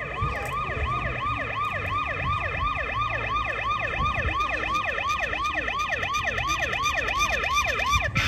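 Emergency-vehicle siren sound effect from a model village fire-rescue display: a fast yelp, each cycle a quick downward sweep in pitch, repeating about three times a second, and stopping suddenly at the very end.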